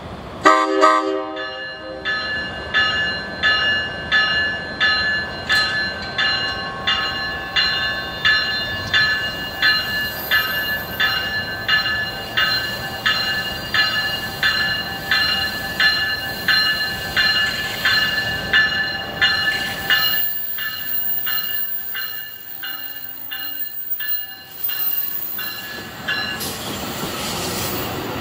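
Passing Amtrak California bilevel passenger train: a short horn blast from the leading cab car, then its bell ringing steadily, about three strokes every two seconds. The bell stops about twenty seconds in, leaving the rumble of the cars rolling by.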